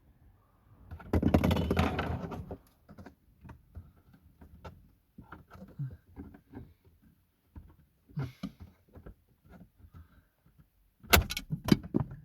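Plastic dashboard parts being pulled and handled in a car during radio removal. A scraping rattle comes about a second in, then scattered clicks and taps, and a cluster of loud knocks near the end.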